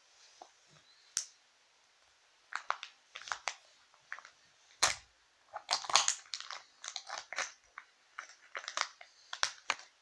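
Foil seal being peeled and torn off the toy half of a Kinder Joy egg, a run of crinkling crackles that starts a couple of seconds in and is loudest around the middle.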